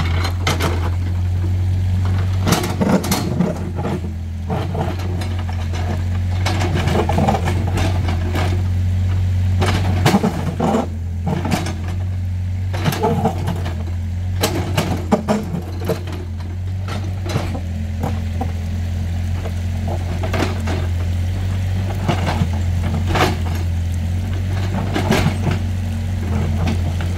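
Excavator's diesel engine running steadily, with irregular knocks, clanks and scrapes of the bucket working rock and soil.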